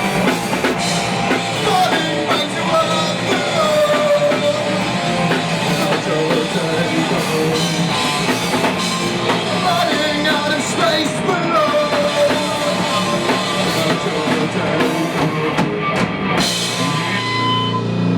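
Rock band playing: drum kit and guitar with a singing voice over them.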